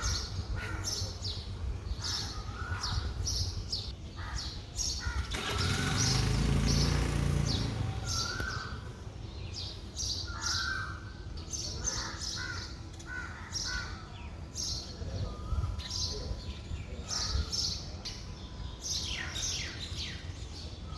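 Small birds chirping and calling in short, quickly repeated high notes, with a lower call now and then. Between about five and eight seconds in, a rushing noise with a low rumble swells and fades; it is the loudest sound here.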